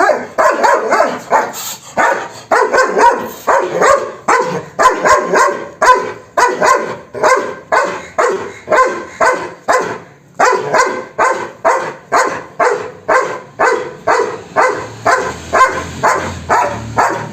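A dog barking loudly in a fast, steady run of about two to three barks a second, pausing briefly about ten seconds in before carrying on.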